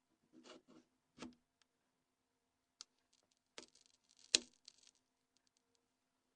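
Faint small clicks and light scraping of a plastic SS93 opening tool and plastic phone parts as the Nokia N82's UI module is levered off its mainframe; the sharpest click comes about four seconds in. A faint steady low hum runs underneath.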